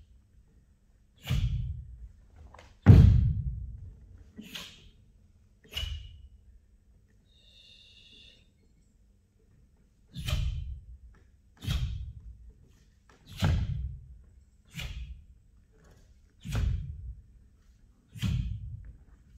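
Taekwon-Do techniques in a pattern: sharp snaps of the cotton uniform and thuds of bare feet on a wooden sports-hall floor, ringing in the large hall. There are about ten of them, one every second or two, with a pause of a few seconds in the middle. The loudest comes about three seconds in.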